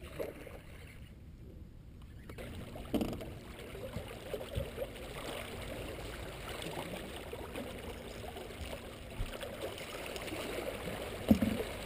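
Water lapping and gurgling against a bass boat's hull, with a faint steady hum and a few knocks on the boat, the loudest near the end.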